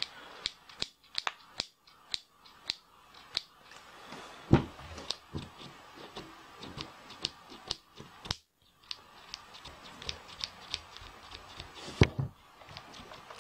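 Repeated sharp plastic clicks and taps from a freshly fitted 3D-printed trigger button on a Goodyear Racing half-inch air impact wrench, pressed and released by hand over and over, about two clicks a second. Two louder knocks stand out, one about four and a half seconds in and one near the end.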